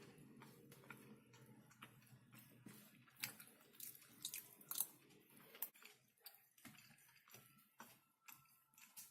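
Close-miked wet mouth sounds of someone eating soft mashed potato: irregular smacks and clicks, several a second at times.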